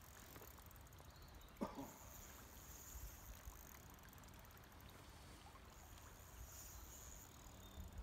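Near silence: a faint low rumble of outdoor ambience by the river, with one short sharp knock about one and a half seconds in.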